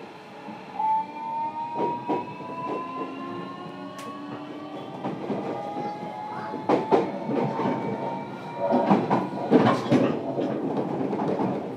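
JR Kyushu 305 series electric train pulling away, heard from inside motor car MoHa 305-101. Its Toshiba permanent-magnet synchronous motor drive gives a set of tones that rise slowly in pitch as it accelerates. Wheels knock over rail joints and points, more often in the second half.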